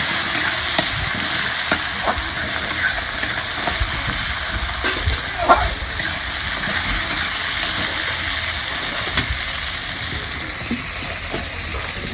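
Onions and tomato frying in hot oil in a pan: a steady sizzle, with scattered scrapes and taps of a spoon stirring, one louder knock about halfway through. The sizzle eases a little near the end.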